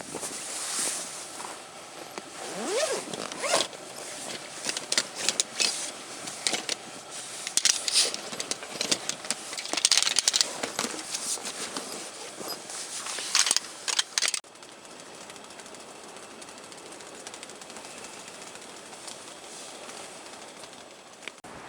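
Irregular crackling, scraping and clicking, then an abrupt cut about two-thirds of the way in to a steady outdoor hiss.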